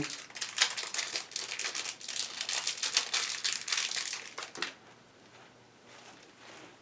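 Plastic packaging crinkling and rustling as it is handled and opened, dense crackles that stop about two thirds of the way through.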